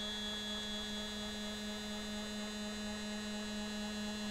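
Stepper motor driving a small linear stage at a steady 40 inches a minute rapid, giving an even, steady hum with a single pitch.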